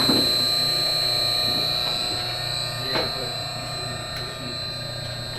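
A steady high-pitched electronic tone, like a buzzer or alarm, sounding over a low hum, with a couple of faint knocks.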